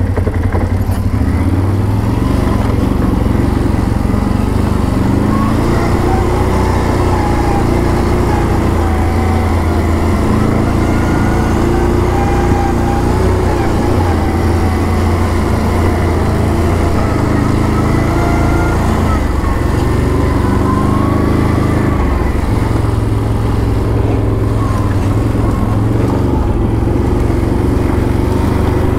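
ATV engine running steadily under way, its pitch rising and falling gently as the revs change.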